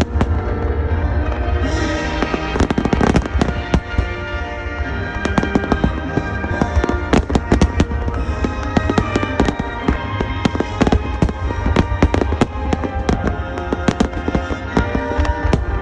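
Aerial fireworks shells bursting in quick succession with dense crackling and a continuous deep rumble of booms, over music playing along with the display.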